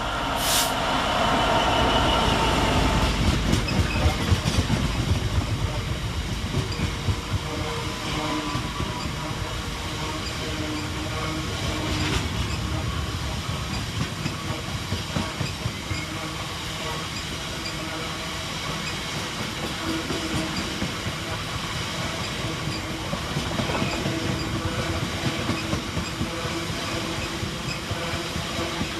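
GB Railfreight Class 66 diesel locomotive hauling a freight train through a station. Its engine rumble is loudest in the first few seconds, with a brief high-pitched sound about half a second in. Then the long rake of wagons rolls past with clickety-clack over the rail joints and some wheel squeal.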